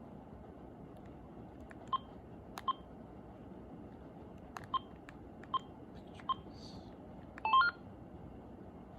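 Cordless phone handset key-press beeps: about seven short single beeps as menu keys are pressed, then a quick rising run of tones near the end as a menu selection is accepted.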